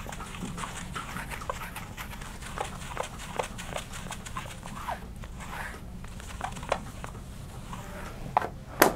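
Whiteboard eraser rubbed over a whiteboard in short back-and-forth strokes, with squeaky scrubbing sounds. A couple of sharper, louder knocks come near the end.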